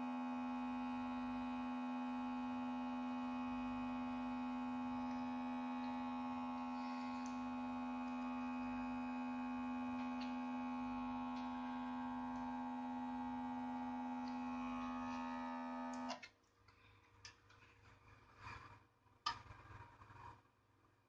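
A hot-air blower runs with a steady hum, warming the phone's screen to soften its adhesive, and is switched off abruptly about sixteen seconds in. A few faint clicks and taps follow.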